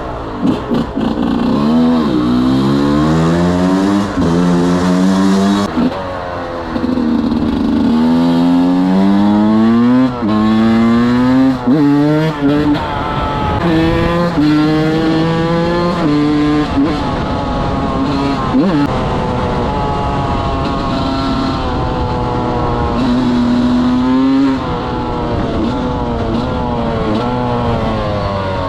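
125 cc two-stroke enduro motorcycle being ridden, revving up through the gears again and again: its pitch climbs, drops at each shift, then climbs again. There are a few stretches of steadier cruising.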